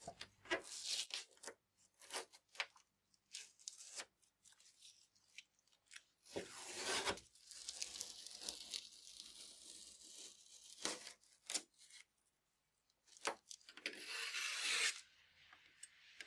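Masking tape being peeled off a car's door moulding: a string of short tearing rips, with longer, steadier peels in the middle and near the end.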